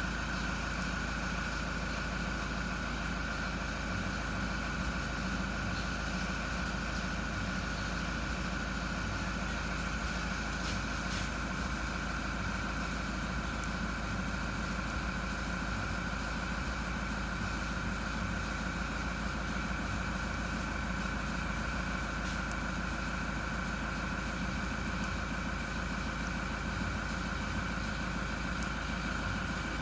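Steady mechanical hum with a low rumble and a thin high whine on top, unchanging.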